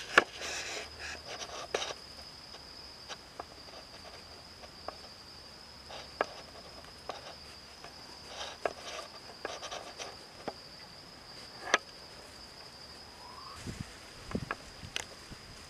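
Nine-banded armadillo rooting through dry leaf litter: scattered rustles and sharp crackles, over a continuous high-pitched insect trill.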